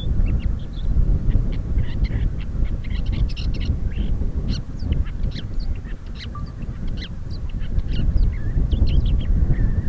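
Male woodchat shrike singing: a fast, varied string of short high notes, some of them slurred, over a steady low rumble.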